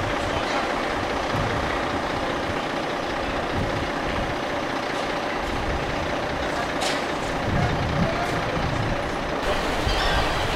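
Heavy truck's diesel engine running steadily, with a brief hiss of air about seven seconds in.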